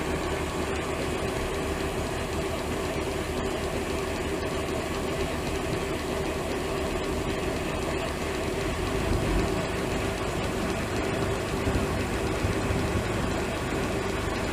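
Tractor-driven grain bag unloader running steadily, its auger elevator lifting grain out of the silo bag and pouring it into a trailer, over the tractor engine. A steady mechanical hum with a held tone, with a few low rumbles in the second half.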